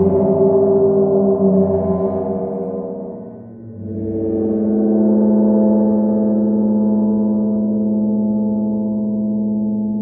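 Large handmade gongs played with a mallet, ringing with many overtones. The ringing dies away about three seconds in, then a deeper gong swells in and hums steadily with a strong low tone.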